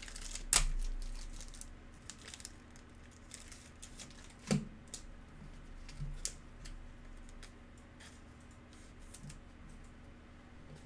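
Thin plastic card sleeve handled: light crinkling and a few sharp plastic ticks as a sleeve is drawn from its pack and a trading card is slid into it. The loudest tick comes about half a second in, another just before the middle.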